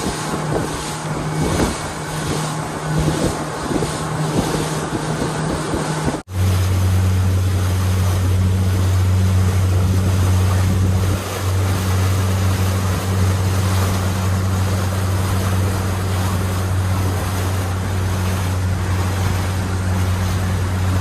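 Boat engine running steadily, with wind and water noise. About six seconds in, the sound cuts to a louder, lower-pitched engine running steadily.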